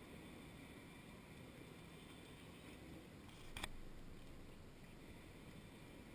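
Near silence: a faint low outdoor rumble, with a single sharp tap about three and a half seconds in.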